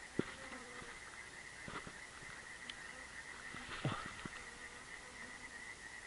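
Quiet dusk ambience: a faint steady high tone, a mosquito whining close to the microphone on and off, and a short sharp knock just after the start, the loudest sound, with a few fainter clicks later.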